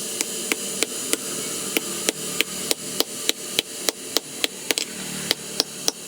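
Hammer blows on hot steel at an anvil while forging a knife blank, about three strikes a second in an even rhythm, each with a short metallic ring, over a steady background noise.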